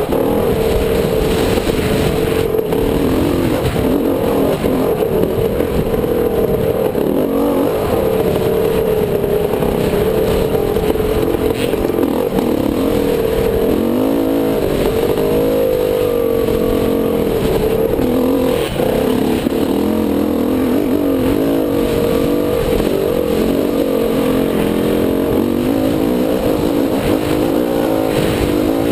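Dirt bike engine running continuously while climbing a rough trail, its pitch rising and falling as the throttle is worked on and off.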